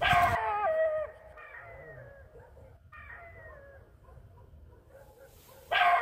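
A wild canid calling: a series of wailing howls that each slide down in pitch. The loudest comes at the start, fainter ones follow, and another loud one begins near the end.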